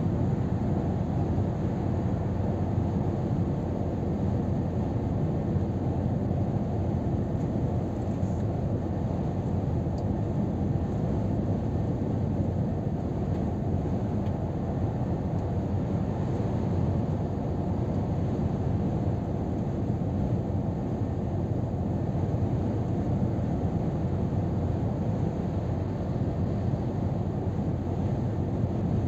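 Steady drone inside a Scania R500 truck cab at motorway cruising speed: engine hum mixed with tyre and road roar and wind, holding even throughout.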